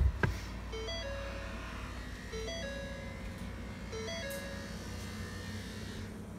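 Ford C-Max dashboard chime: a short three-note electronic tone that steps up, then settles on a held middle note, repeating about every second and a half three times and then stopping. It plays over a steady low hum, with a sharp knock right at the start.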